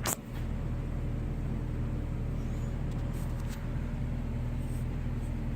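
Steady low mechanical hum from a running machine, with a sharp click at the very start and a few faint ticks later on.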